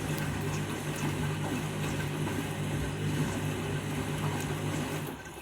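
Candy Grand'O Vita washing machine filling its drum with water: the inlet valve hums steadily under the rush of incoming water, and the sound fades out just before the end.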